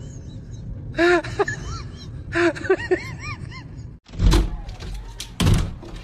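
A dog jumping up against a sliding glass door and pawing at it, giving two heavy thumps on the door about a second apart. Before that come a few short calls that rise and fall in pitch.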